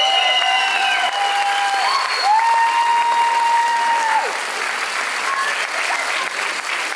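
Theatre audience applauding, with several high, held whoops of cheering over the clapping in the first four seconds or so. After that the cheering stops and the clapping carries on a little softer.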